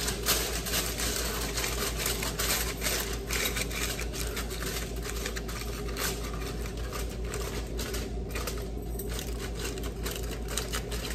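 Aluminium foil crinkling and crackling as it is pressed and crimped down around the rim of a baking pan.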